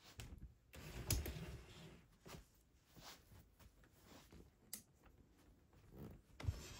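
Soft footsteps and the rustle of a handheld phone as a person goes upstairs, with a louder knock about a second in and another near the end.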